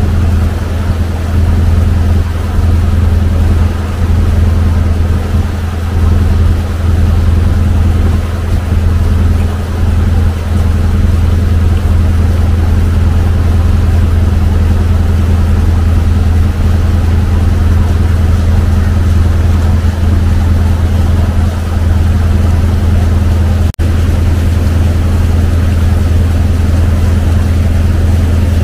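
The Pancar Mas II river boat's engine running at a steady cruising speed, a loud, even low drone with a deep hum under it, heard aboard. It breaks off for an instant about three quarters of the way through.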